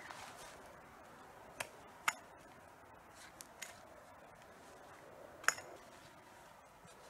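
A hand tool striking the trunk of a windthrown pine: a handful of sharp, irregular knocks, two of them louder with a slight metallic ring.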